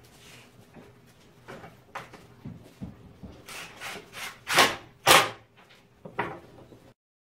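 Cordless drill worked in short bursts on half-inch plywood, mixed with knocks and scrapes as the board and drill are handled. The two loudest bursts come about four and a half and five seconds in. The sound cuts off suddenly near the end.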